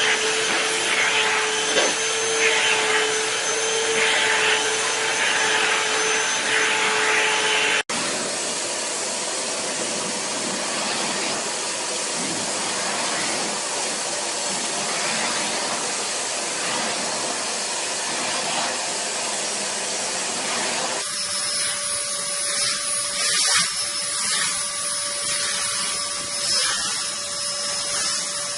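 A steady motor-like whirring with a constant hum, cutting abruptly to a different steady whirr about 8 seconds in and again about 21 seconds in.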